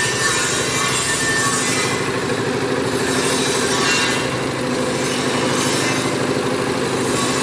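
Small single-cylinder diesel engine powering a paving-block press, running steadily with an even rapid beat.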